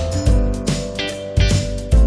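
Background music: a plucked guitar over a steady bass beat.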